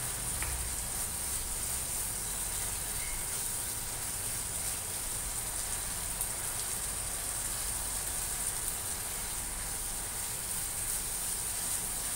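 Corned beef sizzling steadily as it fries in a nonstick pan, stirred with a plastic spoon. It still has some liquid in it and is being fried down until crisp.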